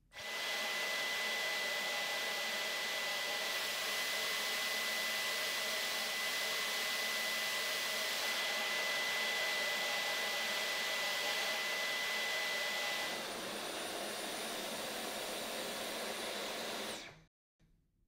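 Dyson V12 Detect Slim cordless stick vacuum running steadily with a high whine. It starts abruptly, its sound shifts and drops a little about thirteen seconds in, and it cuts off about a second before the end.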